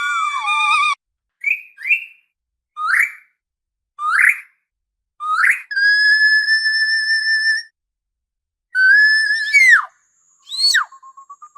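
Orca (killer whale) calls: a run of short, rising whistle-like calls with silences between, then one long steady call held for about two seconds, then calls that sweep up and then drop in pitch near the end.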